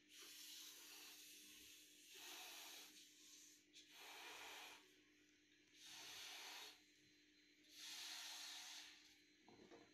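A person blowing up a latex balloon by mouth: faint breathy rushes of air, about five of them, roughly every two seconds, with quiet between breaths.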